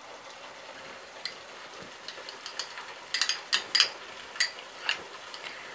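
Thick tomato-onion masala simmering in a steel pan, its bubbles bursting in small irregular pops and spits that come thickest around the middle.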